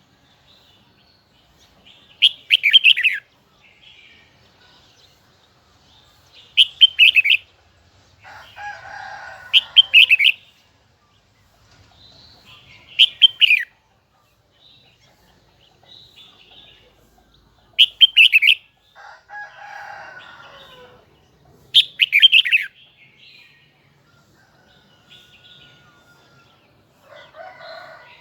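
Red-whiskered bulbul singing short, loud, high phrases about every four seconds, with softer rustling noises twice in between.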